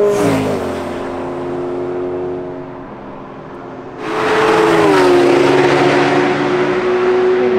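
Two track cars at high revs passing close by, each engine note dropping in pitch as it goes past. The first fades away in the opening seconds; a second, louder pass sets in suddenly about four seconds in and holds a steady high note after its pitch falls.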